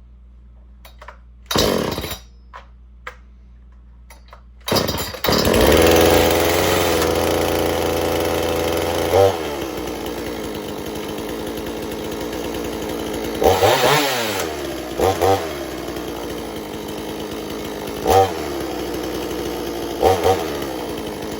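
Husqvarna 450 two-stroke chainsaw being pull-started: one pull about a second and a half in, then it catches about five seconds in and runs at fast idle. It drops to idle about nine seconds in, then gets several short throttle blips.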